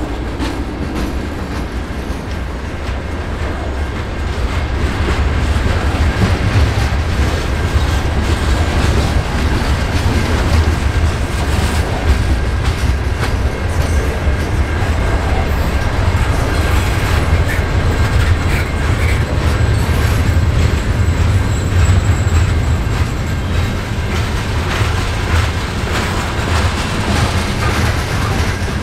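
Freight cars rolling past: a steady, heavy low rumble with the clickety-clack of steel wheels on the rails, growing a little louder about five seconds in.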